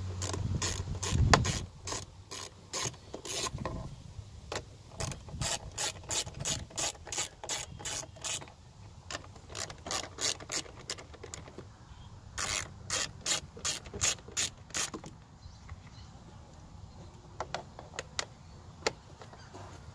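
Hand socket ratchet clicking in runs of quick strokes, a few clicks a second with pauses between, as the bolts of a car's intake airbox lid are backed out. There is a low thump about a second in.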